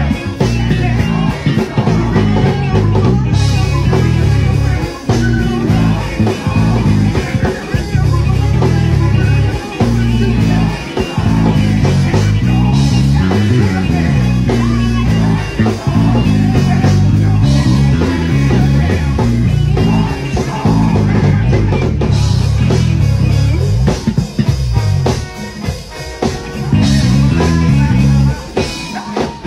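Live gospel band playing, with a heavy electric bass line up front and keyboards and drum kit behind it; the music briefly thins out about three-quarters of the way through before coming back in full.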